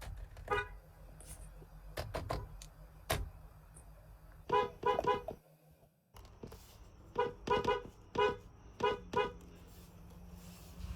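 Short car horn toots: one, then a quick run of three about four and a half seconds in, then after a brief dropout about six more. A few sharp clicks fall between the first toots.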